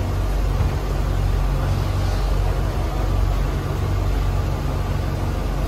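An engine idling, a steady low rumble that holds even throughout.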